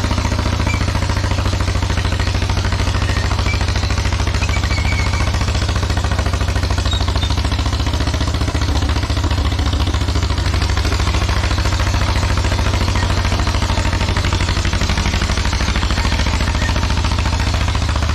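1954 John Deere 40C crawler dozer's two-cylinder engine running steadily at work, a fast even pulsing beat with some clatter.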